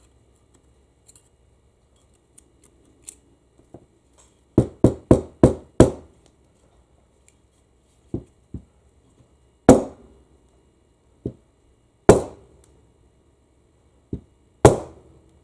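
Sharp knocks of tapping on a transmission valve body to free a stuck piston from its bore. There is a quick run of five knocks about four seconds in, then single and paired knocks every second or two, with a few faint clicks before them.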